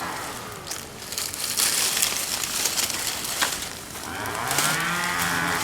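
A cow mooing: one long, low drawn-out call beginning about four seconds in, over the scattered crackles and pops of a wood bonfire.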